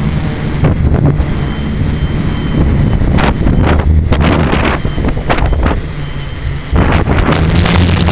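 Quadcopter's electric motors and propellers droning steadily, heard through the onboard camera's microphone, with wind buffeting the microphone in repeated gusts.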